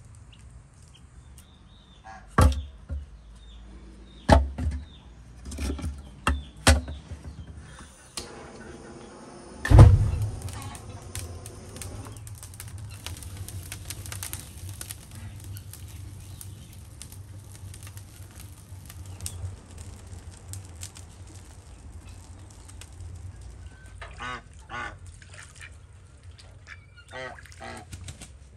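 Farmyard fowl and a wood fire: a few sharp knocks and a goose honking early on, then a loud thump about ten seconds in and the steady low rumble of a wood fire burning in a tandoor. Ducks quack a few times near the end.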